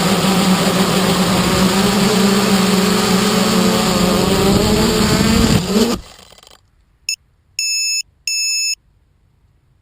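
A 330-size quadcopter's electric motors and propellers drone steadily, with wind rushing over the on-board microphone. The pitch wavers, then the motors spin down and stop about six seconds in. About a second later come three electronic beeps: one short, then two longer.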